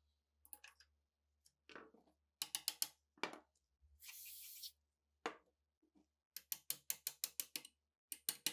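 Hand tools clicking and scraping on the rusted steel of a PTRD anti-tank rifle part, then a short hiss of aerosol gun oil sprayed onto it about four seconds in. Later comes a quick, even run of light metal-on-metal taps, about six a second, as a small hammer knocks at the rusted part.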